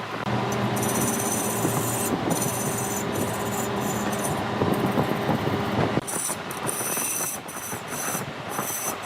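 Large wood lathe turning a log, its motor humming steadily while a cutting tool scrapes and rubs against the spinning wood. The hum stops abruptly about six seconds in, leaving the scraping.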